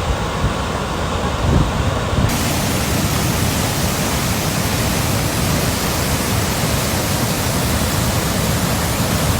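Rushing floodwater: a loud, steady hiss of water noise with no pitch to it. About two seconds in, it turns suddenly brighter and hissier.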